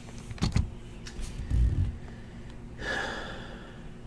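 Desk and keyboard handling: a couple of quick clicks, then a dull low thump, followed about three seconds in by a short breathy exhale that fades out.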